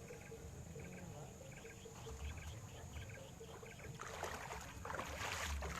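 Water splashing and sloshing, growing louder from about two-thirds of the way in, over regular faint chirps and a steady high hiss.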